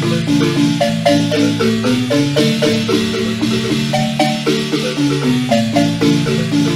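Guatemalan marimba music: mallets playing a lively melody of rolled, held notes over a steady bass line in an even rhythm.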